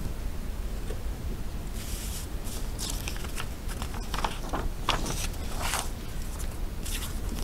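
Paper rustling and light handling noises in short scattered bursts, over a steady low electrical hum.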